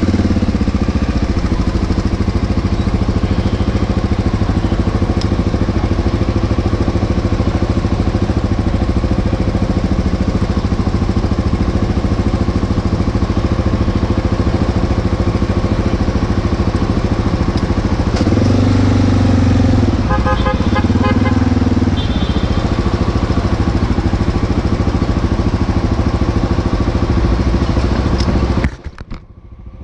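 Steady motor vehicle engine and road noise, with two short pitched sounds about two-thirds of the way through. The sound briefly drops out near the end.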